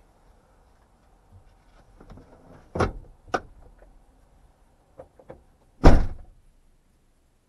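A few clicks and knocks from within a parked car, then about six seconds in a heavy thump, the loudest sound, as a car door shuts.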